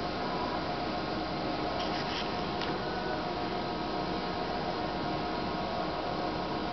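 DEK 02i solder-paste stencil printer running while it initializes: a steady hum from its fans and drives, with a couple of faint clicks about two seconds in.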